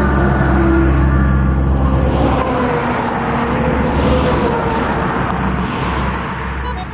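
Trucks and a car passing close at highway speed. A livestock truck's diesel engine hums in the first couple of seconds, then gives way to a rush of tyre and air noise as more vehicles go by.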